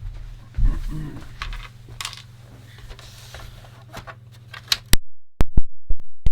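Objects being handled and set down on a bench. A few dull knocks come in the first second, then scattered light clicks, and a run of sharp, loud clicks near the end.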